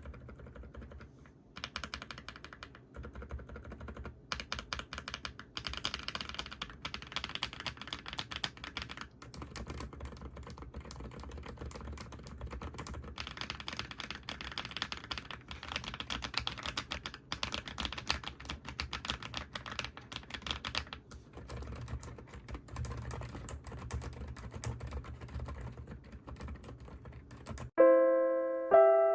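Typing on a custom mechanical keyboard: a fast, continuous run of key clacks with a few short pauses. Piano notes come in near the end.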